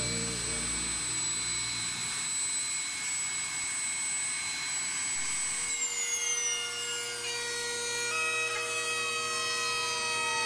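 Rear-mounted jet engines of a small business jet whining steadily at idle. About six seconds in they spool down after shutdown, and the whine slides lower in pitch.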